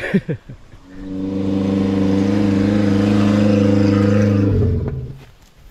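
Small four-wheel drive driving close past at steady revs. Its engine note swells over the first couple of seconds, holds, then drops in pitch and fades as the vehicle goes by.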